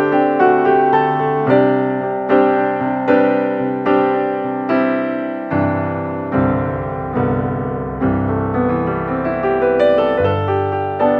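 Background music: a gentle piano or electric piano piece, notes struck in a steady rhythm, each fading after it is played, with a deeper bass line joining about halfway through.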